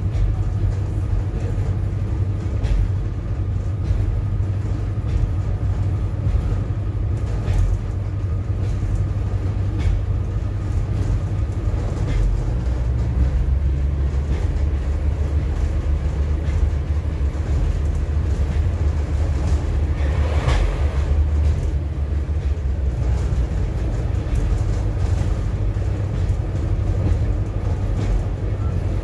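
Cabin sound of a British Rail Class 142 Pacer railbus under way: the underfloor diesel engine's steady low drone with running noise and scattered clicks from the wheels over the track. The drone shifts deeper about halfway through, and there is a brief harsher noise about two-thirds of the way in.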